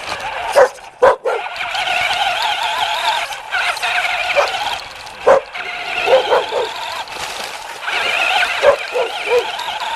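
A puppy barking and yipping in short, sharp bursts, several in quick succession about six seconds in, over the steady, wavering whine of a radio-controlled toy car's electric motor.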